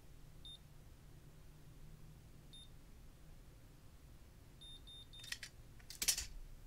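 Conair Curl Secret automatic curling iron beeping: single short high beeps about two seconds apart, then a quick run of about four beeps that signals the curl is ready to release. Near the end comes a brief loud rustle.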